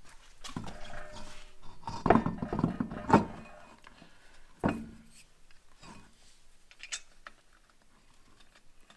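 Road wheel being seated on the hub studs and its lug nuts spun on by hand: a run of metallic clunks and clinks, busiest and loudest in the first few seconds, then a few single clinks and light ticks.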